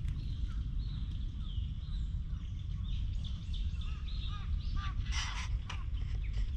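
Wild birds calling in the trees: many short, repeated chirps, thickening after about three seconds, with one harsher, noisier call about five seconds in, over a steady low rumble.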